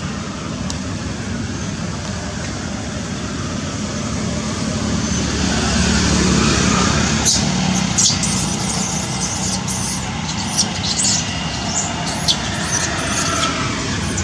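A motor vehicle's engine running steadily, growing louder around the middle, with a series of sharp clicks over it in the second half.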